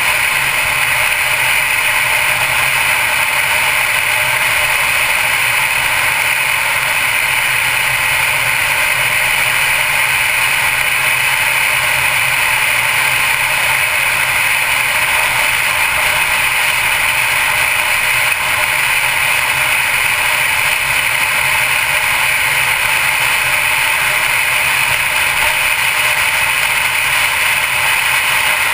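Steady road and wind noise from a 2012 Mercedes-Benz C250 Coupe cruising at road speed, an even hiss with no breaks or changes.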